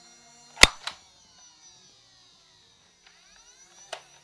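Orange Nerf dart blaster firing: a sharp snap under a second in, a lighter click right after it, then another snap near the end.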